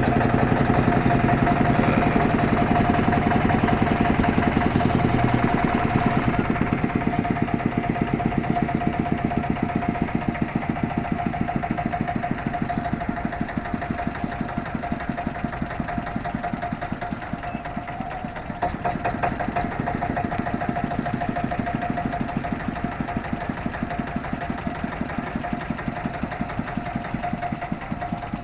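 An engine running steadily with a rapid, even chugging and a steady whine, slowly fading.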